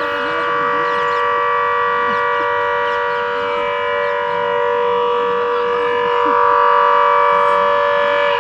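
Civil-defence air-raid warning siren sounding a steady, unwavering tone for a disaster mock drill.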